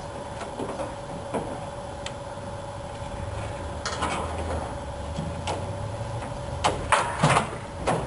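Blade trimming excess vinyl roof material along the chrome trim: scattered short scrapes and clicks, with louder bursts of scraping and rustling about four seconds in and again near the end, over a steady faint hum.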